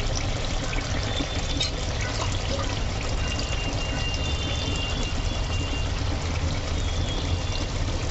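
Thick masala gravy of goat liver bubbling in an aluminium pot on a gas stove while a spoon stirs through it, with light scraping ticks over a steady low rumbling hiss.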